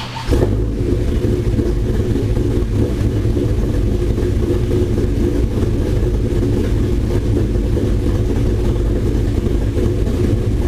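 Dodge Ram SRT-10's 8.3-litre V10 running on a chassis dyno. It comes in loud and sudden about a third of a second in, then holds a steady speed with a deep, even rumble.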